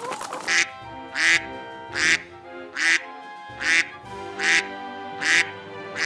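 A duck quacking seven times in an even rhythm, a little more often than once a second, over background music with held notes.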